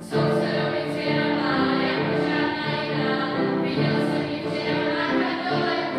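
Girls' choir singing, several voices holding notes that change in steps, cutting in suddenly at the start.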